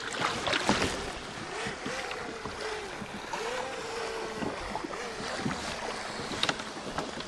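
Water sloshing and lapping around a kayak hull, with wind on the microphone and scattered small knocks and splashes.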